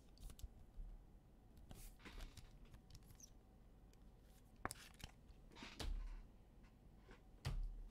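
Faint handling noises: a few light clicks and soft knocks as trading cards and packs are handled on a table.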